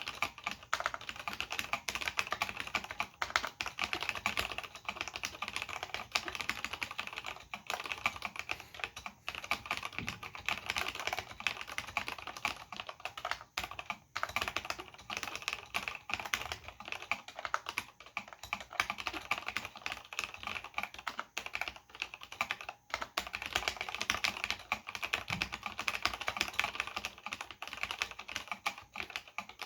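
Fast continuous typing on a Cherry G80-0499 mechanical keyboard with linear Cherry MX Black switches and ABS doubleshot keycaps, a dense stream of keystroke clicks broken by a few brief pauses.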